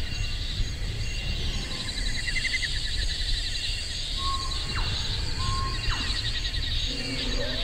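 Wild ambience of insects trilling steadily and bird-like chirps and short whistles over a low rumble. A lower animal call with a rising and falling pitch starts near the end.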